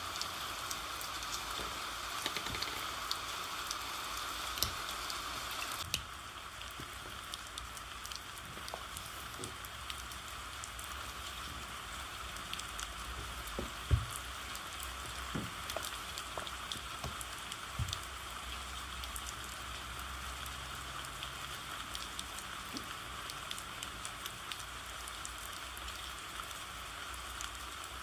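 Steady rain falling, an even hiss of rainfall that drops slightly in level about six seconds in. A few soft knocks sound over it, the loudest about halfway through.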